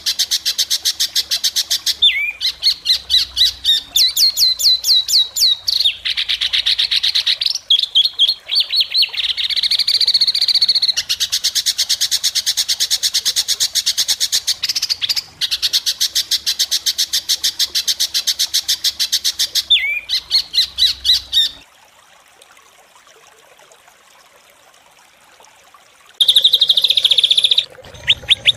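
Recorded songbird song played as a masteran training track: fast trains of harsh, sharply repeated notes ('tembakan kasar') and rapid trills. A pause of about four seconds comes near the end, followed by a loud burst of song.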